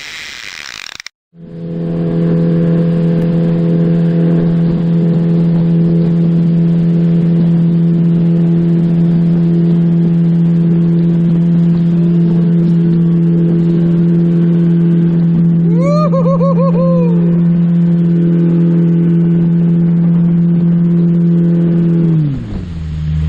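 Jet boat's outboard engine running at a steady high speed under way, then throttling back near the end, its pitch dropping.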